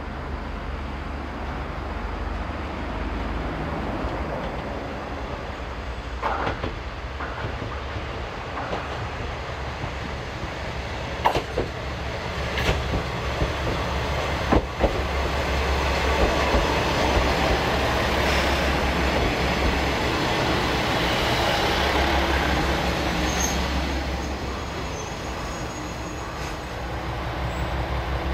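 Diesel trains at a station: a steady low diesel engine hum, with a few sharp metallic clanks of wheels near the middle. A KiHa 120 diesel railcar moves through, and the running noise grows louder in the second half before easing off near the end.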